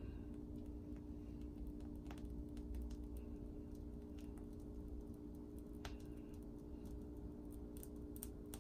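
Faint, irregular crinkling clicks of a plastic piping bag of whipped cream being squeezed, over a steady low hum.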